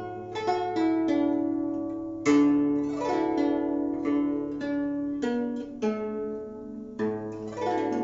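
Guzheng (Chinese plucked zither) being played: a run of plucked notes that ring and fade, with a loud low chord about two seconds in, while the left hand presses the strings beyond the bridges.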